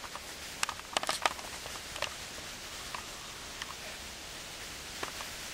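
Dry leaf litter rustling and crackling under shifting feet, with a cluster of sharp crackles about a second in and a few scattered ones after.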